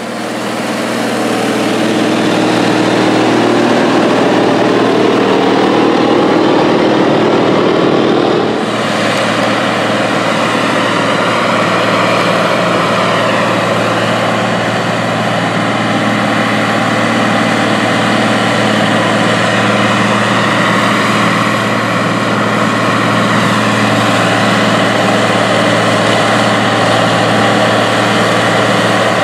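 Case 2670 Traction King tractor's turbocharged six-cylinder diesel engine running steadily, working a dirt pan. The engine swells over the first couple of seconds, the sound changes abruptly about eight and a half seconds in, and it then runs on evenly under load.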